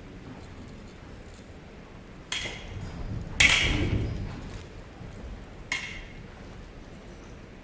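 Foil blades clashing during a fencing bout, with stamping footwork on the stage. There are three sharp metallic clinks, about two seconds in, just after three seconds and near six seconds. The middle one is the loudest, with a thud and a short ring.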